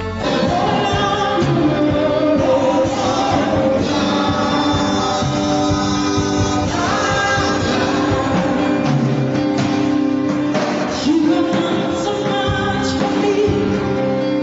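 Worship song: voices singing a melody over instrumental accompaniment.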